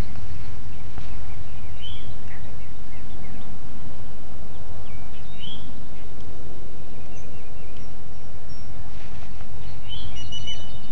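Steady low rumble of wind buffeting a phone microphone, with a few short bird chirps scattered through it.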